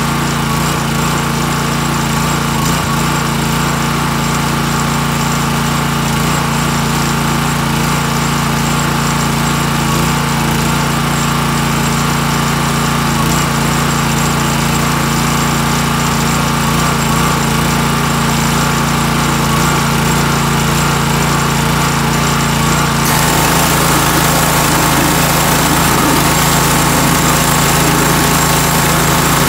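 Gas pressure washer's small engine running steadily. About 23 s in, the spray starts with a loud hiss of water striking the underside of a mower deck, and the engine note shifts as it takes the load.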